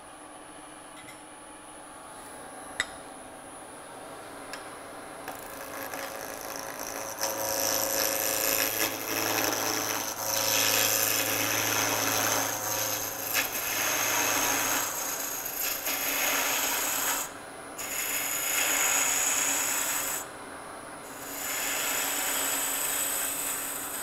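Wood lathe running, then from about six seconds in a turning tool cutting into a spinning wooden pen blank with a scraping hiss that breaks off briefly twice.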